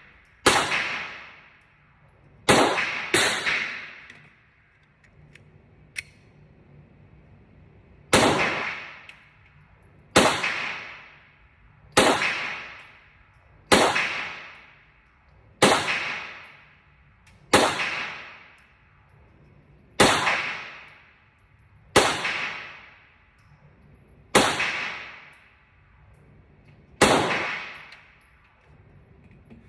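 Glock 45 9mm pistol being fired, about thirteen shots, each echoing and fading over about a second. Three shots come in quick succession at the start, then after a pause a slow, steady string of about one shot every two seconds.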